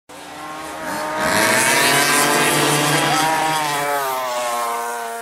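A racing engine sound effect: the engine revs up abruptly and runs at high revs, then drops in pitch and fades out near the end.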